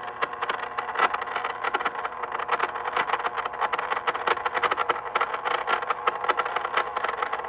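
Stepper motor, set to eighth-step mode, turning the knob of an old NTC antenna rotator control box toward a set target position: a steady mechanical whir with fast, dense clicking.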